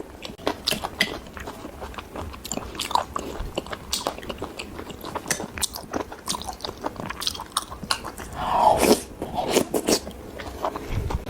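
Close-miked ASMR eating of Northeast Chinese blood sausage: biting and chewing with many quick wet mouth clicks, and a louder, longer bite about eight and a half seconds in.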